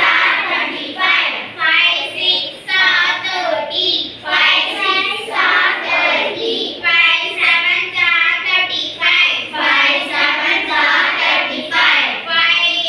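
Young schoolgirls reciting multiplication tables in Tamil as a rhythmic sing-song chant, with phrase following phrase at a steady beat about once a second.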